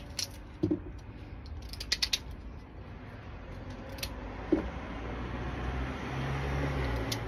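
Scattered clicks and knocks of hands working with food over a metal pot, then a steady rushing noise with a low hum that grows louder over the last two seconds.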